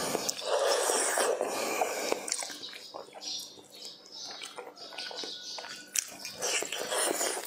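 Close-miked chewing, biting and sucking on braised beef knuckle, with many small mouth clicks. It is busy at first, quieter in the middle, and busier again near the end.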